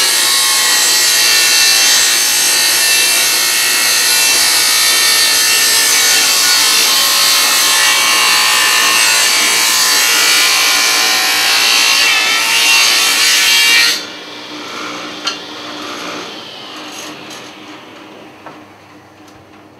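Table saw ripping a long board lengthwise, a loud steady cutting noise. About fourteen seconds in the cut ends abruptly, there is a single click, and the saw fades away over the last few seconds as it winds down.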